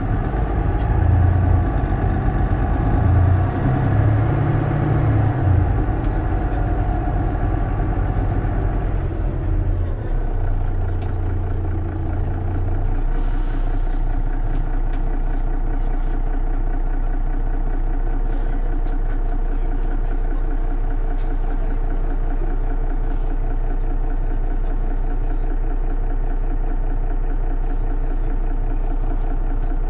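Mercedes-Benz Citaro city bus's diesel engine heard from on board. For the first several seconds it pulls under load, its note shifting up and down, then it dies away. A short hiss follows, and from just before halfway the engine idles steadily.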